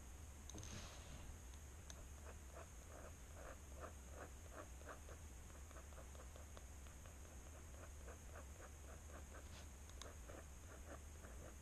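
Fountain pen nib scratching on sketchbook paper in faint, quick, repeated short strokes, about four a second.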